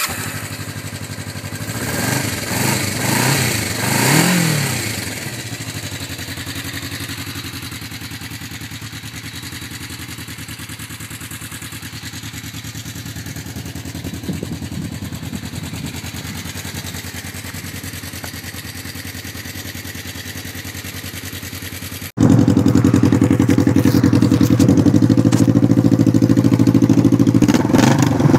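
Kawasaki Vulcan 500 LTD's 498 cc parallel-twin engine just started, revved a few times, then settling into a steady idle. About 22 seconds in, the same engine idles much louder through a straight-piped exhaust, with a rev near the end.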